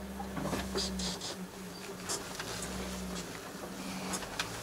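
Small truck's engine running at low speed, heard from inside the cab: a steady low drone whose deeper hum shifts about a second in and again near the end, with scattered light clicks and rattles.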